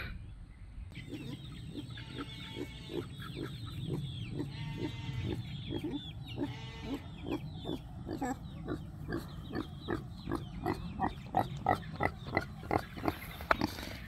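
Pig grunting repeatedly in short grunts that come faster in the second half, mixed with a few longer, drawn-out calls in the first half.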